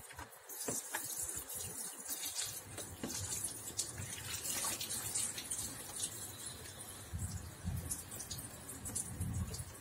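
Liquid running out of the opened radiator drain and splashing below, a steady hiss with small scattered clicks. A low rumble joins it a couple of seconds in.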